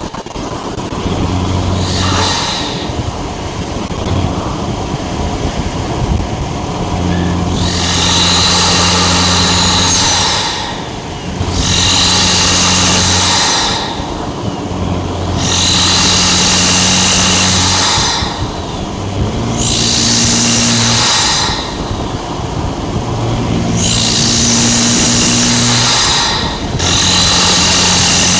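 Tuned Audi SQ5's V6 engine and exhaust revved again and again in bursts of two to three seconds, each held at steady revs with a strong hiss, dropping back between them. A faint high whistle rises in some of the bursts.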